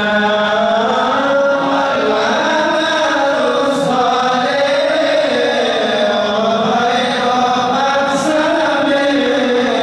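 A group of men chanting a devotional Arabic qasidah in a slow, flowing melody with long held and sliding notes. There are no instruments, and the lead voice is heard through a microphone.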